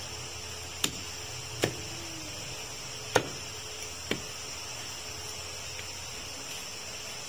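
Four chops of a butcher's cleaver through goat meat onto a wooden log chopping block, spaced about a second apart in the first half, the third the loudest, over a steady high hiss.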